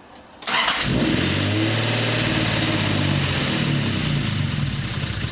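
Datsun 280ZX's 2.8-litre straight-six engine catching almost at once on the key, about half a second in, and running at fast idle, beginning to fade at the very end. It is the first start after a cylinder head rebuild, and the owner puts the stumble down to air still in the fuel system.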